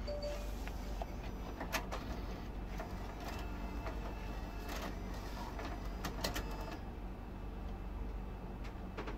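Disc-loading mechanism of a car radio's in-dash 6-CD changer drawing in a CD, with a run of clicks and mechanical whirring as the changer works to load disc 1. A steady low hum lies underneath.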